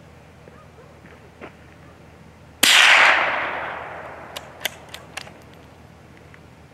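A single rifle shot about two and a half seconds in, its report echoing and dying away over about two seconds. Then come four quick metallic clicks as the rifle's action is worked to chamber the next round.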